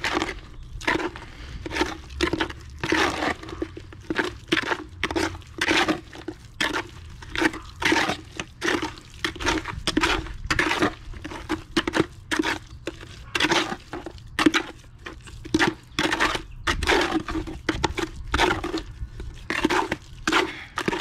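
Trowel stirring and scraping wet quick-setting concrete in a plastic bucket, as repeated wet scraping strokes at an irregular pace of about two a second.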